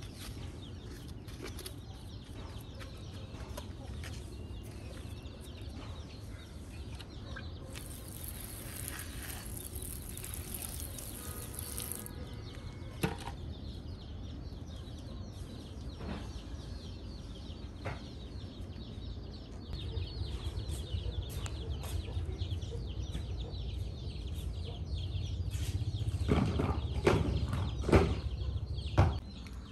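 A low, steady rumble with scattered clicks and rustling. A hiss runs for a few seconds about a third of the way in, and several louder knocks come near the end.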